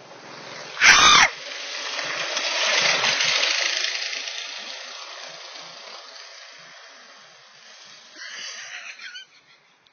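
A sudden loud thump about a second in, then a go-kart's small engine running, swelling and fading away over several seconds.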